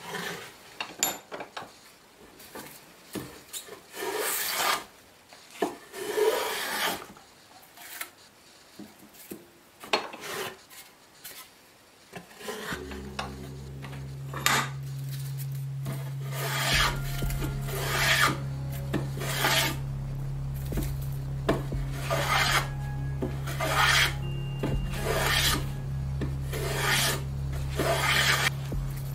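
Hand-tool strokes rasping and scraping across a pine board held in a bench vise: scattered at first, then coming about once a second. A steady low hum sets in about halfway through and runs under the strokes.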